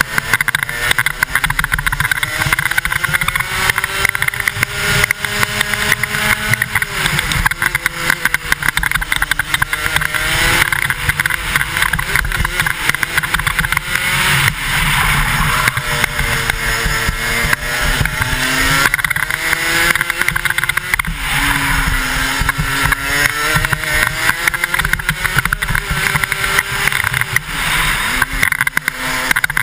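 Racing kart's 125cc single-cylinder two-stroke engine at speed on a track, heard on board; its pitch climbs as it accelerates, then falls off sharply several times as it lifts for corners.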